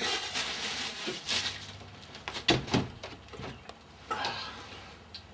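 Water splashing in a small tub, then a few sharp knocks and clicks.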